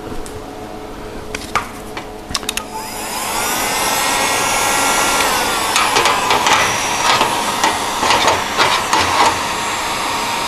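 AC TIG welding arc on an aluminium bumper: a few clicks, then about three seconds in the arc strikes and runs with a steady hiss and hum, crackling from about six seconds on as the torch warms the metal.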